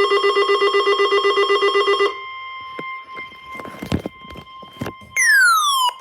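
Weather-radio alert tones: a loud pulsing electronic alarm, about eight pulses a second, for about two seconds. Then a steady tone near 1 kHz, the NOAA Weather Radio warning alarm tone, with a few sharp clicks over it. Near the end a loud tone slides downward in pitch.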